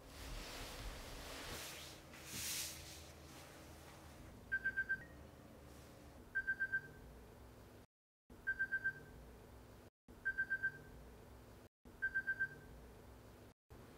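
A rustle early on, then a phone alarm beeping: quick runs of four or five high beeps, repeating about every two seconds.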